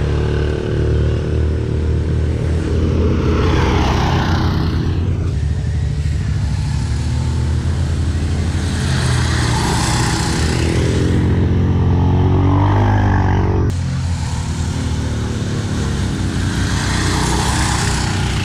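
Small off-road engines running on a dirt track: a four-wheeler, then an off-road go-kart, each swelling and fading as it drives past. The engine sound changes abruptly about two-thirds of the way through.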